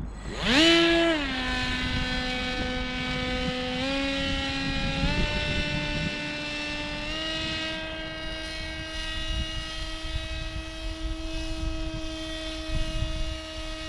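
Radio-controlled paramotor's motor and propeller starting for take-off, rising sharply about half a second in and dropping back. It then steps up in pitch three times and holds a steady whine as the model climbs away.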